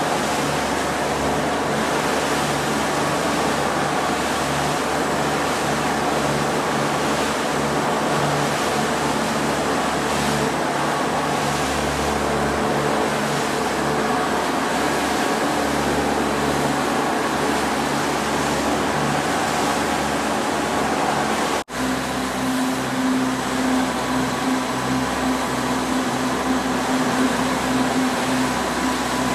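Sport-fishing boat's engines running steadily under way, a constant low drone with rushing wind and water noise over it. About two-thirds of the way through the sound cuts out for an instant, then the engine drone comes back with a steadier, stronger hum.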